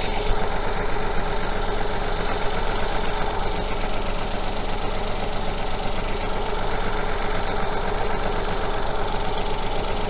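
Small three-cylinder petrol engine idling steadily with one cylinder's fuel injector unplugged, so that cylinder gets no fuel and does not fire.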